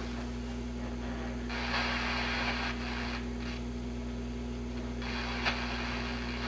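Admiral 20X122 vintage television on a badly received channel, putting out a steady low hum with static hiss rising over it in the middle and a single click near the end.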